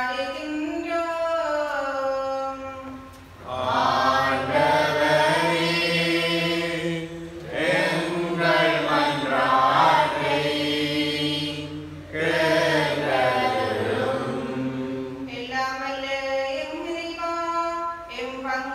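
Liturgical call-and-response chant. A single woman's voice chants a line, then the congregation answers in a longer sung response of many men's and women's voices, and the woman's voice chants again near the end.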